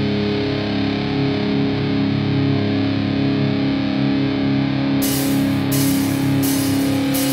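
Stoner rock instrumental passage: distorted electric guitar holding sustained chords, with cymbal strikes joining in a steady beat about five seconds in.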